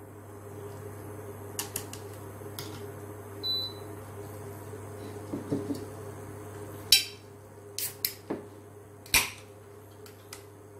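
Chopsticks clinking and knocking against a hot pot and dishes: a scatter of short, sharp clicks, most of them in the second half, over a steady low hum.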